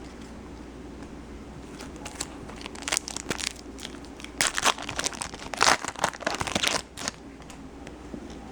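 A foil trading-card pack wrapper being torn open and crinkled by hand, in a run of irregular crackly rustles in the middle.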